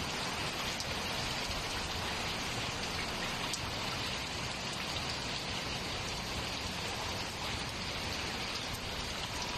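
Heavy rain falling steadily on a flat rooftop, an even rushing patter with no break.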